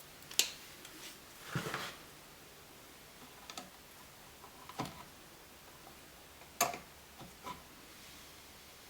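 Scattered small clicks and taps, with a brief rustle about one and a half seconds in: hand tools and electrical outlet parts being handled.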